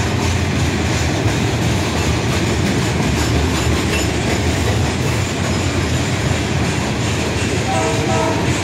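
Loaded ballast hopper cars of a freight train rolling past close by: a steady noise of steel wheels running on the rails, with a short squeal near the end.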